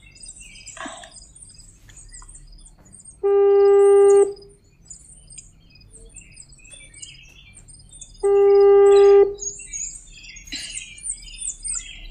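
A phone's calling tone: a steady electronic beep about a second long, sounding twice about five seconds apart, as a call waits to connect. Birds chirp throughout.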